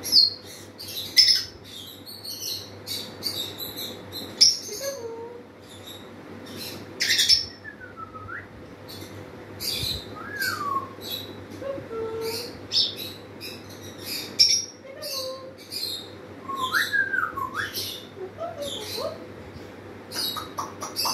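Congo African grey parrot making a string of short sharp clicks and chirps, mixed with brief whistled notes that glide up and down. Near the end comes a quick run of rapid notes.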